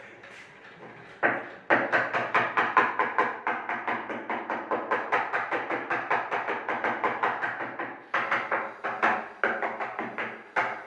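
Background music with a fast, steady percussive beat over sustained tones, coming in about a second in.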